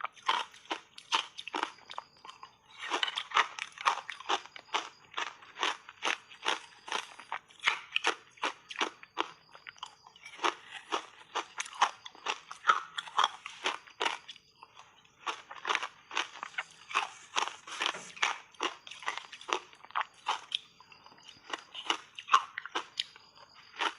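Close-up crunching of frozen matcha ice cubes, bitten and chewed in quick, sharp crunches several times a second, with a few short pauses between mouthfuls.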